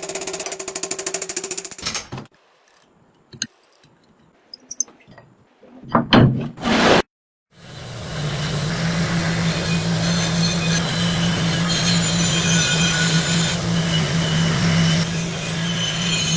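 Metal restoration tool work: for about two seconds, rapid even rasping strokes, then a few scattered knocks and two short loud bursts. From about halfway on, a power tool runs steadily with a constant motor hum under a rough grinding noise.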